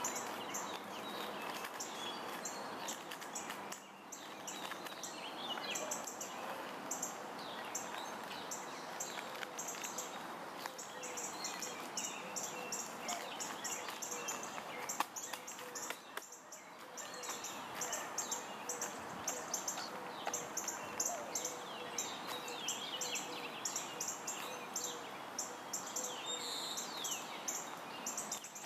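Outdoor ambience with songbirds chirping, quick repeated high chirps and short sliding call notes throughout, over a steady background noise with a faint hum.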